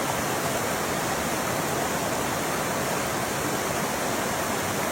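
Steady rush of a rocky mountain creek, water pouring over stones with an even hiss.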